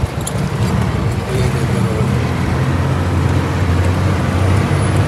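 Motor vehicle's engine running steadily while driving on a snow-covered road, heard from inside the cabin as a low, even hum with road noise.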